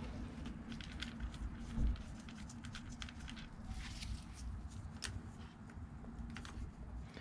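Scattered small metallic clicks and light taps of a Phillips screwdriver and screws as a motorcycle battery's terminals are fastened, over a steady low hum.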